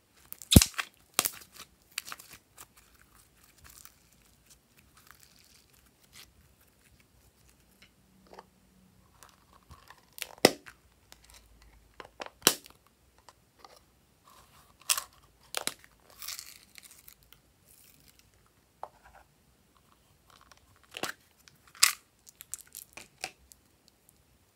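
Slime and small plastic pieces being handled: scattered sharp clicks and snaps with short crackling, popping stretches as sticky slime is squeezed and pulled, a plastic slime container is opened and small plastic charms are dropped in.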